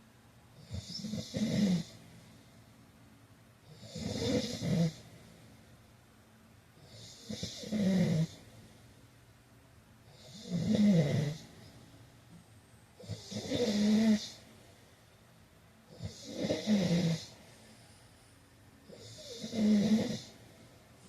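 A man snoring in sleep: a rattling snore with a breathy hiss comes about every three seconds, seven times, with quiet breaths between.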